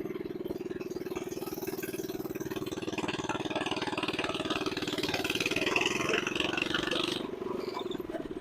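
Mini bike's small single-cylinder engine running steadily on a newly fitted upgraded carburetor, its firing pulses even. A rougher, higher-pitched rattling noise joins in about three seconds in and cuts off suddenly about seven seconds in. The engine is still cold and, by the owners' account, close to dying; they suspect it needs to warm up.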